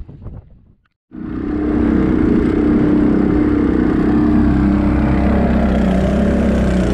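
Small outboard motor of an outrigger fishing boat running steadily under way, with rushing water and wind behind it. It cuts in abruptly about a second in, after a moment of silence.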